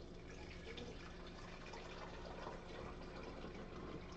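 Tap water being poured into a Drinkmate carbonation bottle, a steady, fairly quiet pouring and trickling.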